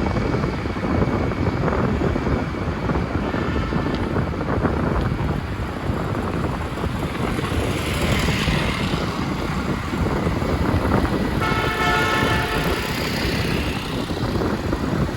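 Steady road traffic noise heard from a moving bicycle, with a vehicle horn honking for about a second and a half near the end.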